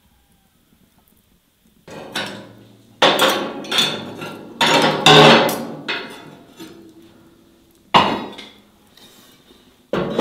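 Metal clanks and scrapes as cast-iron plates on a wood-burning cookstove top are lifted off with a hooked lid lifter, a busy run of knocks over a few seconds, followed near the end by two sharp single clanks as a cast-iron pan is set down over the open fire.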